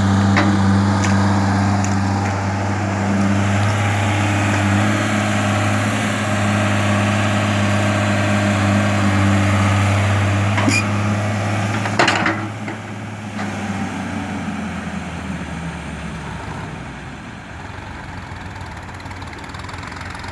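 Tata Hitachi crawler excavator's diesel engine running steadily with a deep hum as it digs and swings a bucket of wet mud, with a few sharp clanks. About twelve seconds in there is a loud knock, after which the engine sound is fainter and dies away.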